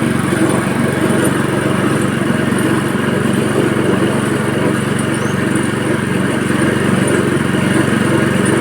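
Type A22 coconut-milk press machine running steadily, with an even mechanical drone and no change in speed.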